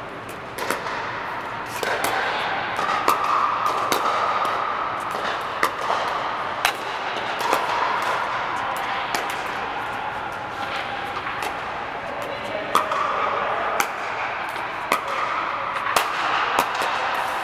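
Pickleball paddles striking hollow plastic balls: sharp pops at irregular intervals from several courts, some loud and close, others fainter. They echo inside an indoor court dome.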